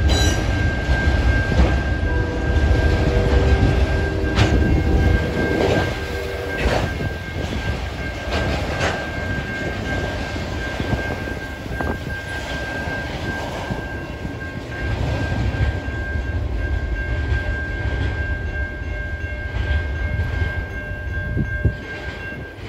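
Freight train of autorack cars rolling past: a heavy rumble of steel wheels on rail, with a few sharp clanks and a steady high-pitched squeal running underneath. The rumble is loudest in the first few seconds and eases as the last cars go by.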